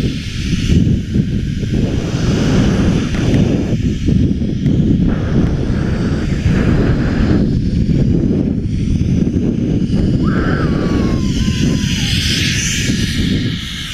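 Wind buffeting the microphone during a downhill ski run: a loud, constant low rumble that gusts up and down.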